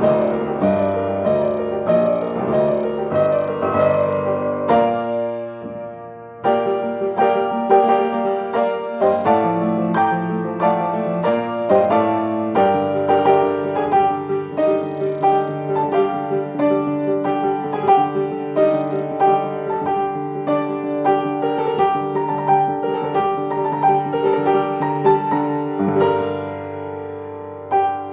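Solo grand piano played at a quick, steady flow of notes. The playing thins and softens about five seconds in, then picks up again with a strong attack and carries on densely.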